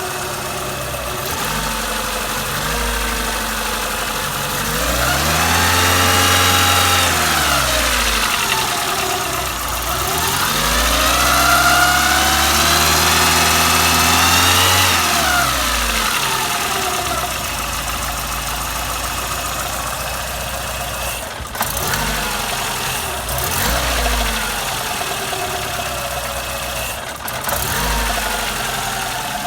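Citroën Berlingo 1.4-litre TU3JP petrol engine idling and being revved: two long rises and falls in revs, then three short throttle blips, each with a sharp knock. The owner describes a tapping from the exhaust-manifold side when the throttle is released, on an engine whose timing belt is overtightened and whose idler roller is noisy.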